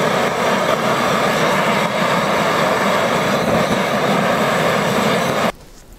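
Snow Peak gas torch firing its flame into firewood that would not catch: a loud, steady rushing hiss that cuts off suddenly near the end.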